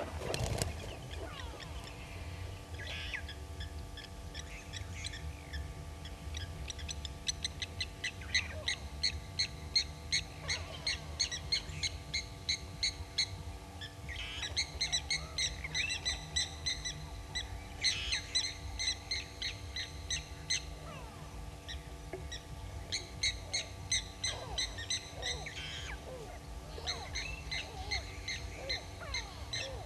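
Wild birds calling: several bouts of rapid, evenly spaced short high notes, each bout lasting a few seconds, with fainter sliding calls underneath.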